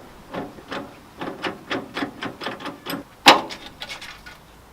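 Irregular clicks and knocks of tools and parts as the air-conditioning fan is worked loose from the front of a Nissan Skyline GTR, with one louder knock a little over three seconds in.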